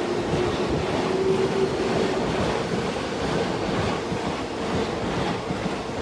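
E233-1000 series electric commuter train accelerating away from the station, its cars running close past with steady wheel-on-rail noise and clickety-clack, and a motor tone that rises in pitch. The last car clears near the end.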